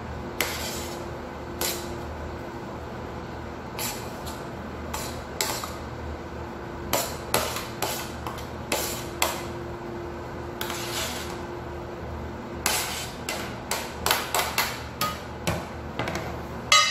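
Metal spoon scraping and knocking against a plastic tray and bowl as chopped salad vegetables are pushed into the bowl and stirred: a string of irregular clicks and taps, the sharpest near the end, over a steady low hum.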